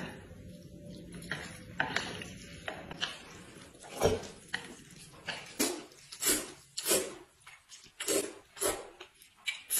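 A person slurping up noodles: a run of short, sharp slurps that start about four seconds in and repeat roughly every half second to second.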